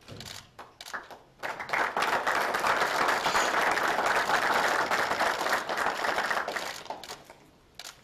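Applause: a few scattered claps at first, swelling into steady clapping about a second and a half in, then dying away near the end.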